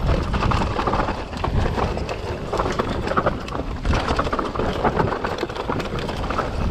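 Mountain bike ridden down a rough, rocky trail, heard from an action camera: a constant rush of wind on the microphone with the irregular clatter and knocking of tyres on stones and the bike rattling.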